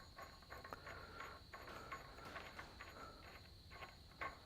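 Near silence: faint workshop room tone with a steady high whine and a few light clicks.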